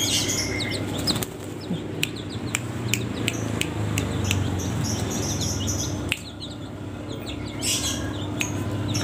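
Young green junglefowl chirping in short high peeps, with wings fluttering as they hop about. The chirps come in a cluster near the start and again near the end, with a few sharp clicks in between.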